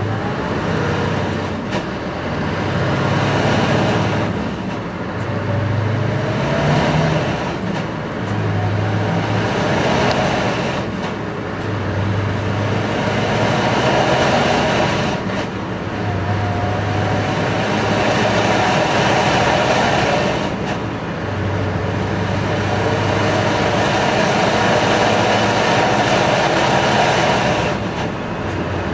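Driving noise of a large road vehicle heard from inside the cab: steady engine drone and road noise, with a low hum that swells and fades every few seconds.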